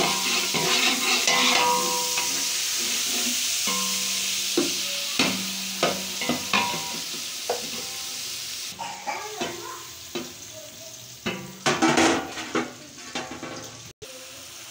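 Onions and tomatoes sizzling in hot oil in a large metal pot, stirred and scraped with a steel spoon, with repeated clinks of the spoon against the pot. The sizzle thins out about two-thirds of the way through, leaving mostly the spoon's scrapes and knocks, loudest a couple of seconds before the end.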